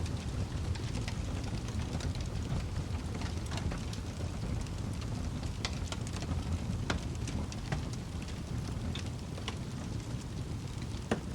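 Wood fire crackling in a fireplace: a steady low rumble of burning with irregular sharp pops and snaps scattered through it, the loudest pop just before the end.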